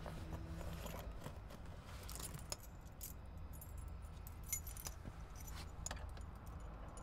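Keys jangling and clinking in irregular spurts as they are handled, with the sharpest clinks about two and a half and four and a half seconds in.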